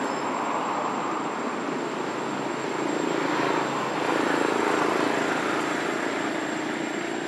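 A steady engine-like drone with a low hum, growing a little louder about three to four seconds in.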